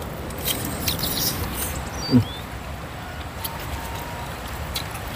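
Eating sounds from people eating by hand: scattered wet smacks and chewing clicks, with a short sound from a voice about two seconds in, over a low steady rumble.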